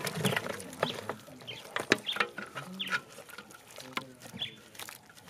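Chickens clucking, with several sharp clinks and knocks as stew is dished onto a metal tray.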